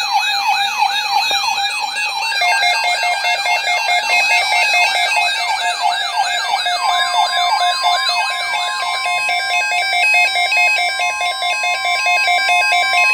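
Electronic sirens sweeping rapidly up and down, joined about two seconds in by a two-note hi-lo alternating tone, and about seven seconds in by a steady single-pitch alert tone near 1 kHz, the NOAA Weather Radio warning alarm tone; the rapid sweeps stop about nine seconds in while the alternating tones and the steady tone go on.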